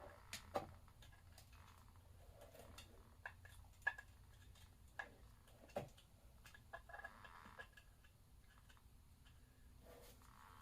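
Scattered light clicks and taps of engine parts and tools being handled during an engine teardown, irregular and a few seconds apart, with the sharpest one about four seconds in.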